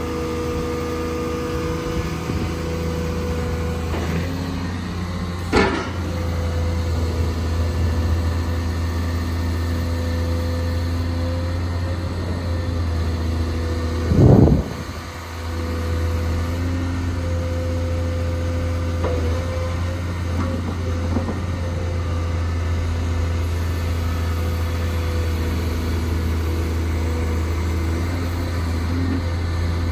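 Volvo EW210D wheeled excavator's diesel engine running steadily as the boom, arm and bucket are worked, with a steady tone over the low engine hum. A sharp knock comes about five seconds in and a louder thump about halfway through, with a few lighter knocks later on.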